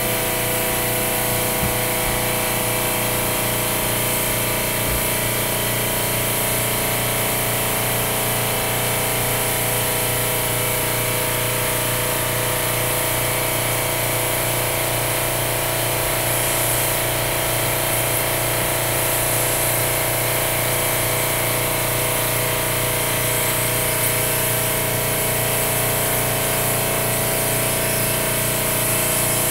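Airbrush air compressor running steadily with a motor hum, under a constant hiss of air through a Harbor Freight double-action suction-feed airbrush as it sprays paint.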